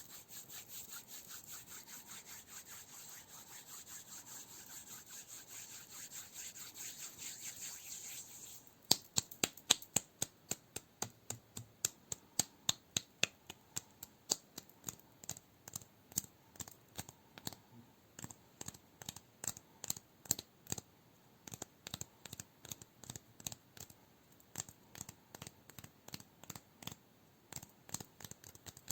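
ASMR sounds on cork: fast, continuous scratching for about the first eight seconds, which stops suddenly. Then comes a steady run of sharp taps on the cork, about three a second.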